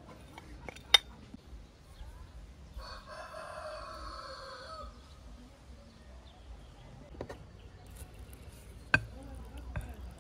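A rooster crows once, a single call about two seconds long starting about three seconds in. Sharp clinks of a metal spoon on dishes, louder than the crow, come about a second in and again near the end.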